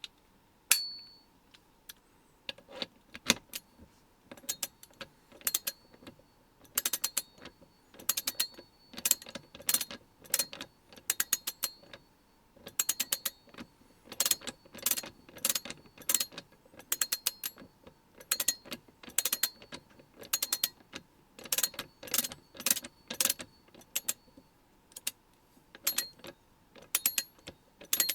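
ASH LVR4250 1/2-inch drive 20-tooth, two-pawl ratchet handle being swung back and forth, each stroke giving a short run of coarse, widely spaced clicks. A louder sharp metallic click rings briefly about a second in.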